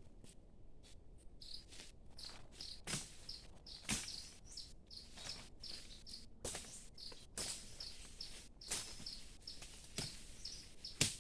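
Forest ambience: a short, high chirp repeating about twice a second, with several sharp knocks or rustles at irregular moments, the loudest near the end.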